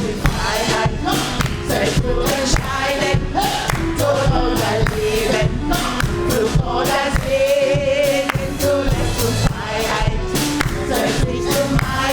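Live gospel music: singing voices over a band with a steady beat, one voice holding a wavering note around the middle.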